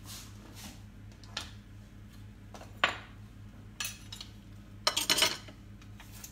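Dishes and cutlery clinking and knocking as they are handled, in a few separate sharp clatters. The loudest comes about three seconds in, with a quick cluster around five seconds in, over a steady low hum.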